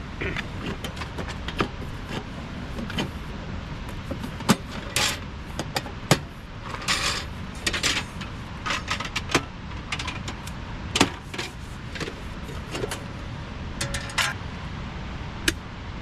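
Camp stove and cooking gear being handled and put together: irregular metallic clinks, clicks and rattles, some ringing briefly, with a single sharp click near the end. Beneath them runs a steady low rushing noise.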